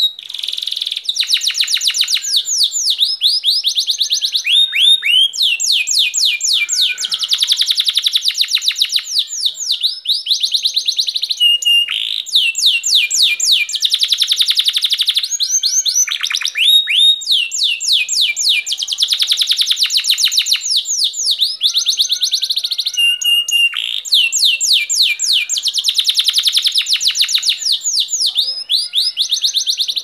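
Domestic canary singing a long, loud song of rapid trills, phrase after phrase of fast repeated high notes, with only brief breaks between phrases.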